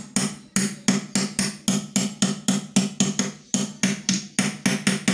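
Quick, regular hammer blows on the metal drive-end housing of a Peugeot 406 starter motor, about four strikes a second, each with a short metallic ring.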